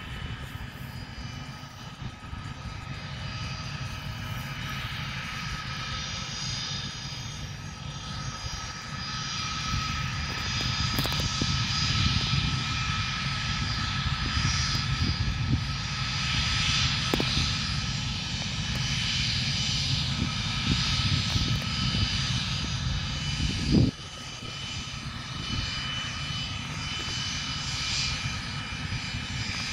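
Small twin-engine business jet's rear-mounted turbofans whining at taxi power: a steady whine of several high tones over a low rumble, growing louder about a third of the way in as the jet taxis closer. A single sharp thump comes near the end, and the level then falls.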